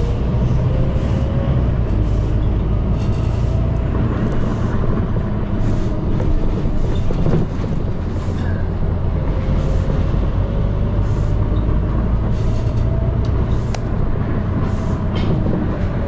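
London bus running, heard from inside: a low, steady drive drone with a whine that rises as it gathers speed and falls again near the end, and frequent short rattles and clicks.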